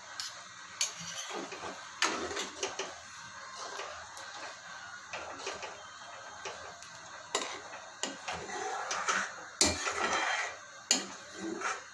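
Steel spoon scraping cream off a steel bowl, then a ladle stirring thick gravy in a black kadai, with scattered metal clicks and knocks as utensils touch the pan; the loudest knock comes near the end.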